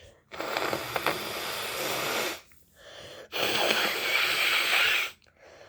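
A woman blowing her nose, stuffed up with a cold, into a tissue: two long blows of about two seconds each, the second louder.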